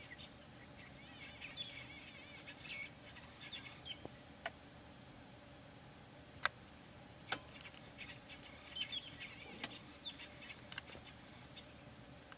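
Small birds chirping and twittering in two spells, with a few sharp isolated clicks and a faint steady low hum underneath.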